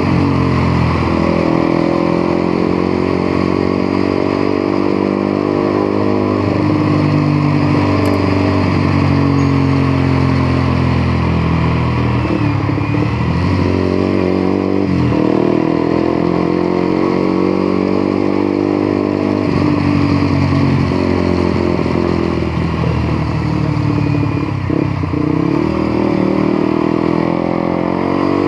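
Motorcycle engine under way, its pitch rising as it is revved and dropping back at gear changes or roll-offs several times, over steady wind and road noise.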